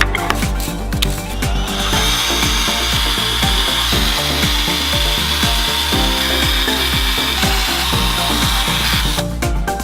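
A power tool running steadily with a high whine, starting about two seconds in and stopping shortly before the end, over background music with a steady beat.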